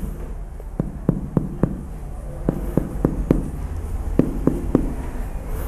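Abdominal percussion: a finger tapping sharply on a finger laid on the belly, working outward from the umbilicus to test for the shifting dullness of ascites. The taps come mostly in twos and threes with short pauses between.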